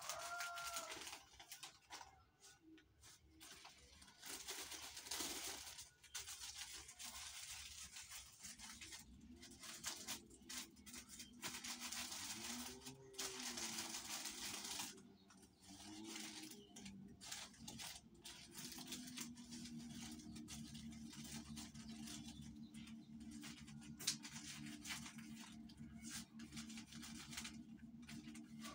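Plastic sachet strips rustling and crinkling in irregular bursts as they are handled on the wall display. A rooster crows briefly at the very start.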